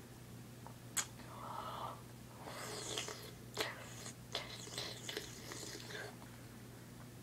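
Mouth noises of someone sucking on an ice cube held in the mouth: wet sucking and slurping with breathy hissing, broken by a few sharp clicks.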